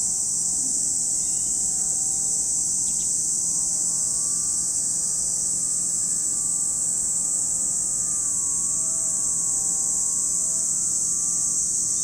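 Cicadas singing in a dense chorus, a steady unbroken high-pitched hiss. Underneath is a faint hum whose pitch shifts about eight seconds in.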